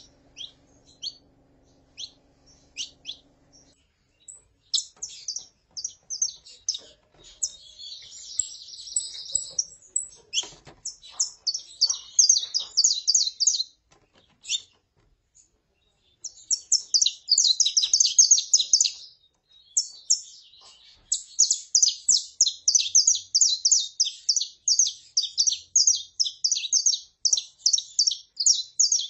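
Saffron finches: a female's short, spaced calls, then a male singing long, rapid phrases of high notes, with a break of about two seconds past the middle.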